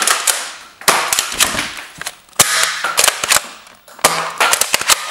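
BoomCo toy dart blaster firing plastic darts again and again, about one shot every second and a half: each a sharp pop followed by a quick cluster of plastic clicks and clacks.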